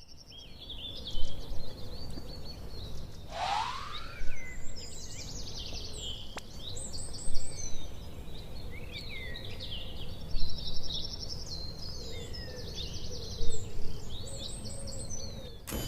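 Birds chirping and calling, many short calls one after another, over a steady background hiss, with a single rising sweep about three and a half seconds in.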